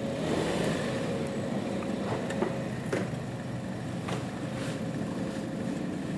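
Car engine idling steadily, with a few short clicks partway through as the driver's door is opened.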